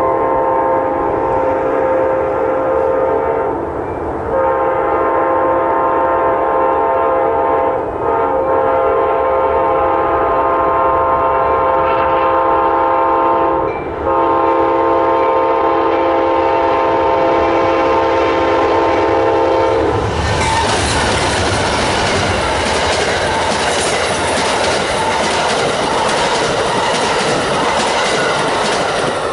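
Diesel locomotive air horn on an Amtrak train hauled by GE P42DC locomotives, sounding a loud multi-note chord in long blasts with short breaks as the train approaches. About two-thirds of the way through the horn cuts off and the passenger train rushes past, its wheels clattering over the rail joints.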